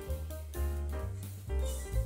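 Background music with a steady beat: pitched keyboard-like notes over a heavy bass line, with light percussion.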